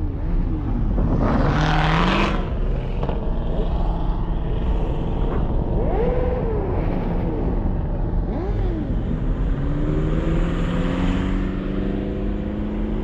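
Car engines revving as cars leave a car show: several quick blips that rise and fall in pitch. There is a loud hissing burst about two seconds in. In the second half an engine note climbs steadily as a car accelerates away.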